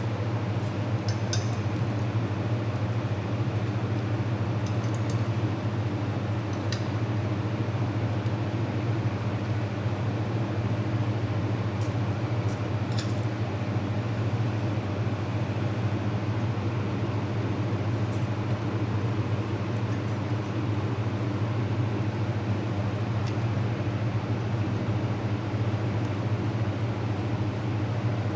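Fiber laser welding machine running: a steady low machine hum with a constant noise bed, broken only by a few faint high ticks.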